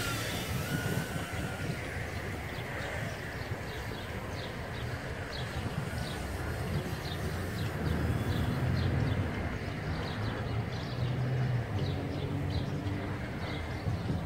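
Motors of a micro FPV quadcopter in flight, powered by a 2S LiPo, droning with pitch and level that shift with the throttle and swell twice in the second half. Short high chirps repeat throughout over the motor sound.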